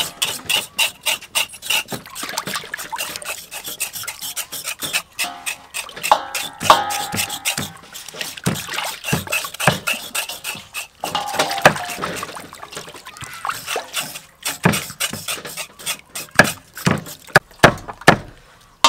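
Knife blades scraping the skin of raw pork legs held in a steel basin of water, in quick repeated strokes.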